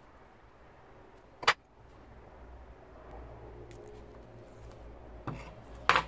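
Two sharp clicks, about four and a half seconds apart, the second the louder and just after a fainter one, over a low hum that grows about halfway through.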